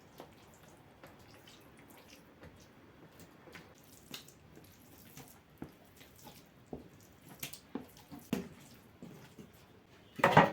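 Light knocks and clicks of things being handled, coming more often as it goes on, with one louder clatter about ten seconds in.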